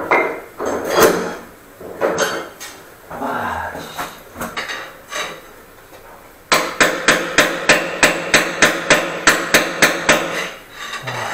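Hand hammer striking hard: a few scattered knocks, then from about six and a half seconds in a fast, even run of about four blows a second.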